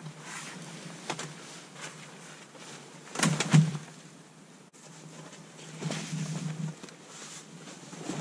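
Camouflage fabric pop-up hunting blind being unfolded and pulled upright: the fabric rustling and flapping, with a louder burst of rustling and sharp clatter a little over three seconds in and another rustle around six seconds.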